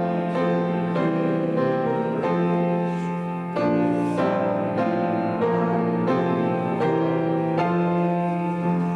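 Instrumental keyboard music: slow, sustained chords changing every second or so over a steady low note, with no singing.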